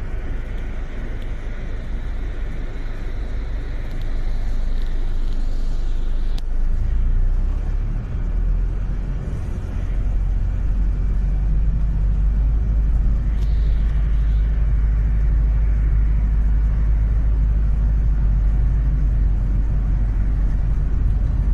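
London double-decker bus heard from its upper deck: a steady low rumble of engine and road noise as the bus drives, growing louder about four seconds in. A faint high whine rises over the first few seconds and ends with a click.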